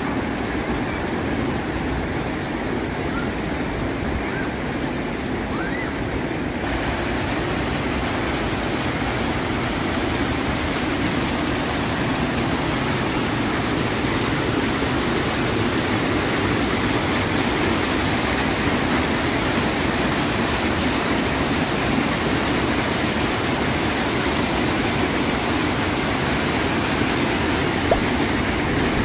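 Floodwater pouring over a concrete dam spillway and churning over rocks below: a steady, loud rushing of turbulent water. About seven seconds in, the rush turns hissier.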